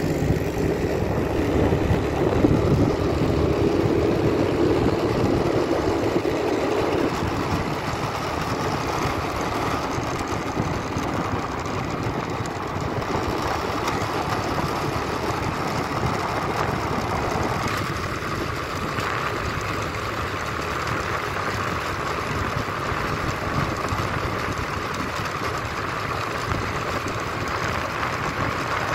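Motorbike engine running steadily while riding on the open road, mixed with wind and tyre noise.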